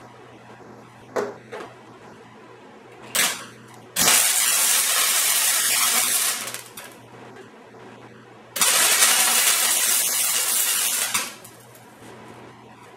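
MIG welder laying two welds, each a steady sizzling crackle lasting about two and a half seconds, with a pause of about two seconds between them. A few short sharp sounds come before the first weld.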